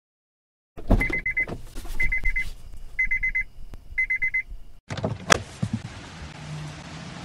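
A car's electronic warning chime beeping four times, about once a second, among clicks and knocks. Then, after an abrupt change, a steady low hum with one sharp click.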